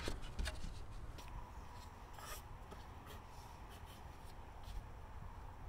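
Faint rubbing and a few light ticks as a thin, freshly cut panel frame is handled.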